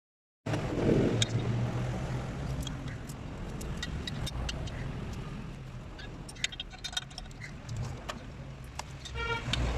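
Light metallic clinks and taps of tools and parts over a steady low hum, with a short pitched squeak near the end.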